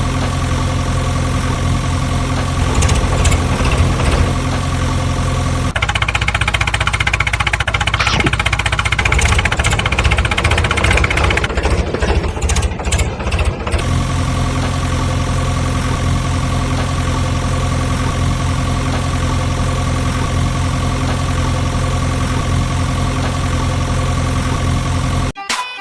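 An engine running at a steady idle. For about eight seconds in the middle the sound turns rougher and clattering, then the steady idle returns.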